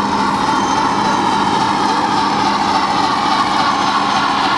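HO-scale Milwaukee Road 10-wheeler steam locomotive model (Bachmann Spectrum with a Tsunami sound decoder) running past with its freight cars: a steady running noise with a constant low hum underneath.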